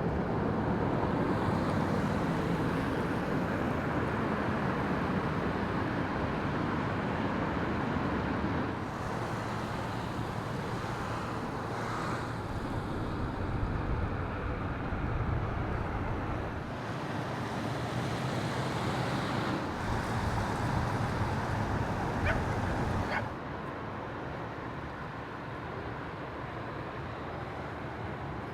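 Steady outdoor rushing noise of vehicles and traffic, in several stretches that change abruptly about 9, 17 and 23 seconds in.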